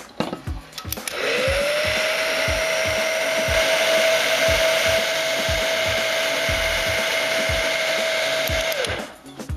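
Heat gun switched on about a second in, its fan spinning up to a steady whine over a loud rush of hot air while shrinking heat-shrink tubing, then switched off near the end and spinning down.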